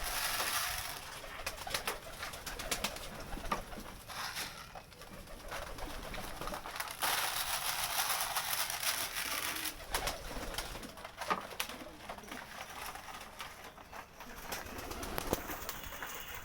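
Kept pigeons cooing in a small enclosure, with scattered sharp clicks and rustling among them.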